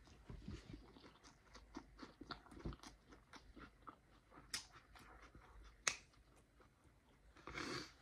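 Quiet chewing of a bite of burrito: soft wet mouth clicks and smacks, with a few sharper clicks and a short breathy exhale near the end.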